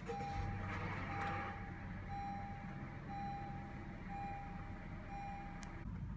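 A 2016 Honda Civic's in-cabin warning chime, a single steady tone sounding about once a second, six times, over a steady low hum that stops just before the end.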